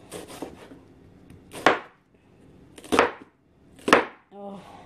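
Kitchen knife slicing through an onion and knocking on the cutting board: three sharp chops about a second apart, with fainter cutting sounds between.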